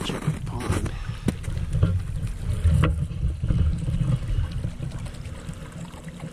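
Wind buffeting the microphone: an uneven low rumble, with a few light clicks over it.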